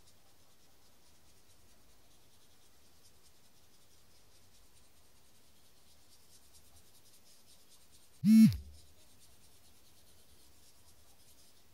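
Fine black felt-tip pen scratching faintly on thick watercolour paper in many short strokes. About eight seconds in, a brief loud sound with a falling pitch cuts in.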